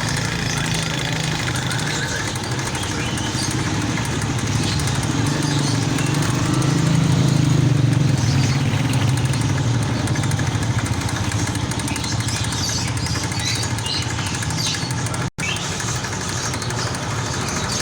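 A steady low engine drone that swells a little about halfway through, with faint short chirps above it. The sound cuts out completely for an instant near the end.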